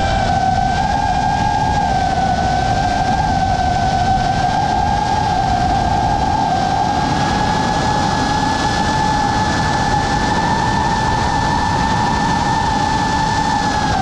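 FPV racing drone's brushless motors and propellers whining steadily in flight, the pitch drifting with throttle and rising slightly about halfway through, over a constant rush of air.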